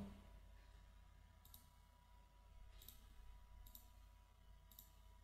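Faint computer mouse clicks, four in all, each about a second apart, over near-silent room tone.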